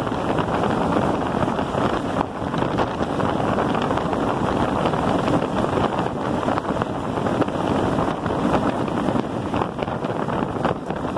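Steady wind rush on the microphone of a camera riding on a moving electric bike, with tyre noise crackling over loose gravel road underneath.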